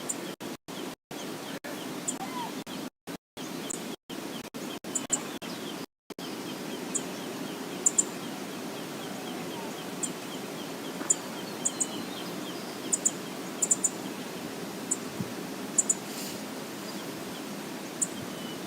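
Steady rushing of river water from an outdoor wildlife cam, with brief high ticks scattered throughout and faint bird chirps. The audio cuts out completely several times in the first six seconds.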